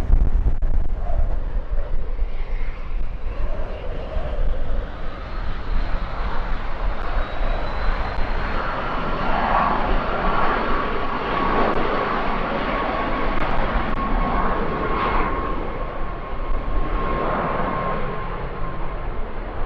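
Cessna 525A Citation CJ2 twin-turbofan business jet on its takeoff run and departure: jet engine noise with a steady high turbine whine that swells through the middle and eases toward the end. Low wind rumble on the microphone runs underneath.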